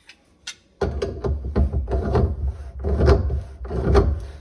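Pliers gripping and turning the lock nut on a sink basket strainer: a run of rough scraping knocks, about two a second, starting suddenly about a second in.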